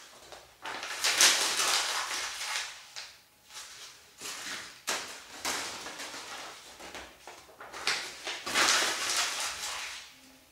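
A crumpled sheet of paper being handled and crinkled, in three bouts of crackling rustle with short pauses between.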